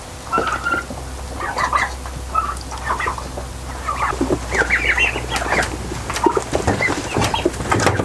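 A flock of young turkeys calling in many short, overlapping peeps and chirps, with a few sharp clicks and a low steady hum underneath.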